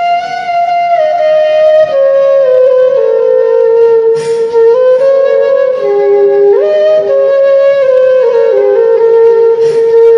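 Background flute music: a slow melody of held notes stepping up and down.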